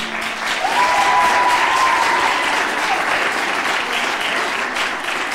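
Audience applauding and cheering, dense and steady, with one long high note held above the clapping for the first three seconds or so.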